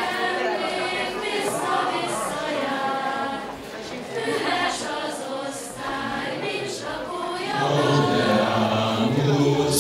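A group of voices singing together in sustained notes. Lower voices join about eight seconds in, and the singing gets louder.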